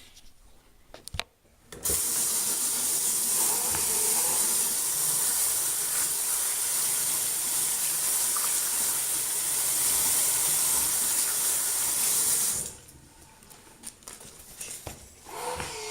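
Water running hard from a tap into a sink as a steady rush, turned on suddenly about two seconds in and shut off about eleven seconds later. A couple of small clicks come just before it starts.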